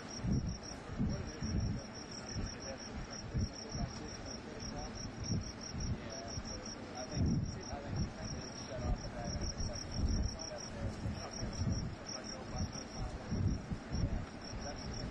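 Field insects chirping in a steady, rapid train of high-pitched pulses, over a low, uneven rumble.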